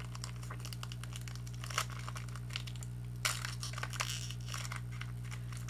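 Foil Yu-Gi-Oh booster pack being torn open and crinkled by hand, in short irregular bursts of crinkling that are loudest about three seconds in, over a steady low hum.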